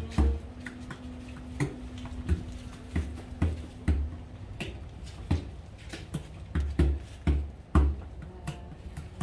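Bodhrán played solo with a tipper: an unhurried, irregular rhythm of deep strokes on the goatskin mixed with lighter taps and clicks.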